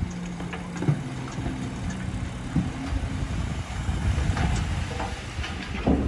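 Dump truck's diesel engine running steadily to power the raised tipper bed, with a few short knocks as the load of soil slides out of the bed.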